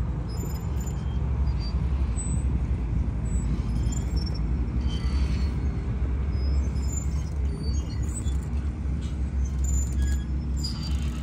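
Outdoor street ambience: a steady low rumble with faint short high chirps now and then.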